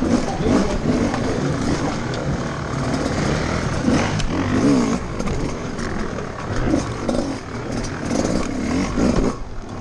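GasGas enduro motorcycle engine revving up and down in repeated bursts, its pitch rising and falling as the bike is ridden over logs, with a brief drop in level near the end.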